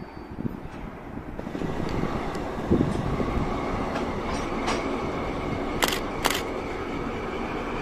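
Diesel locomotive DD501 running as it moves a train of container flat wagons past, the sound growing louder about a second and a half in as the engine and the rolling wheels come nearer. Two sharp metallic clicks come close together about six seconds in.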